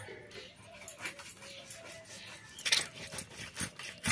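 Sharp clicks, knocks and a louder scraping rasp from cutting and handling food on a boti blade, strongest about three seconds in. Under it runs a faint wavering call.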